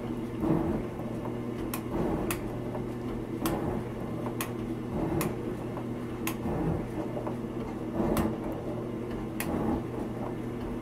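Atlas 7B metal shaper running, its ram going back and forth as the tool takes cuts in a steel block, with a steady motor hum. Sharp clicks come roughly once a second with each stroke.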